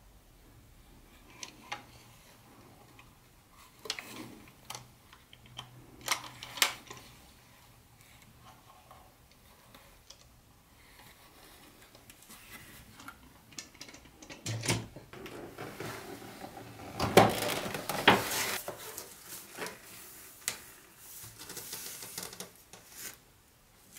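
Light plastic clicks and taps from a toy train caboose being handled, then a busier run of plastic knocks and crinkly rustling from the plastic packaging tray, loudest a little past the middle.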